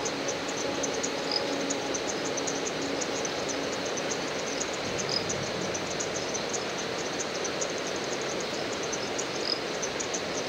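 Insects, crickets or cicadas, chirping in a fast, even pulse, about four chirps a second, over a steady hiss of ambient noise. Three short separate chirps stand out now and then.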